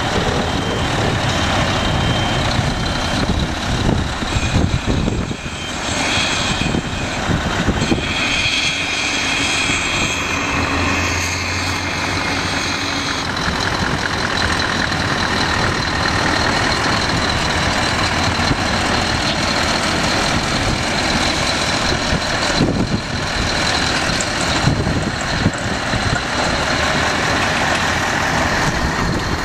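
Scania R-series trucks driving slowly past in turn, their diesel engines running, with a steady high whine for several seconds about a third of the way in.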